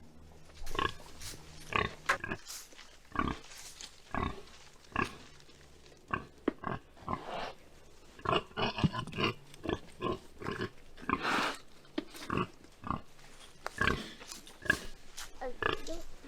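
Pigs grunting in short, irregular bursts, some closely bunched, while they crowd around their water.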